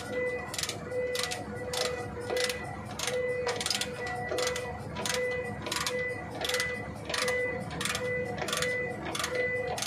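Ratchet wrench clicking steadily, about two clicks a second, as its pawl ratchets back on each return stroke while turning a nut on an air brake chamber's clamp during a diaphragm change.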